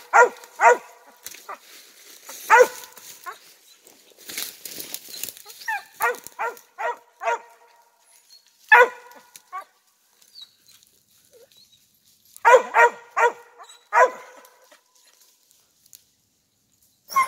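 Hunting dog barking treed at the base of a tree: short chop barks, singly and in quick runs of three or four, with pauses between. This is the tree bark that signals game up the tree. A rustling noise comes about four seconds in.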